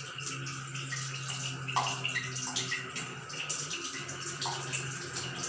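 A closed household water tap and its pipes making a steady low hum with water rushing, broken by short ticks and blips. The hum drops out briefly near the end.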